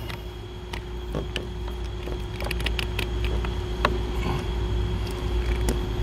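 Scattered light clicks of a hand wire stripper-crimper working the ends of trailer-wiring power wire to fit butt connectors, over a steady low hum.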